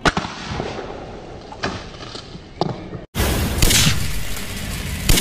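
A few short, sharp knocks over a noisy background, then a hard cut into a cinematic logo sound effect: a deep hit followed by loud rushing whooshes that swell twice.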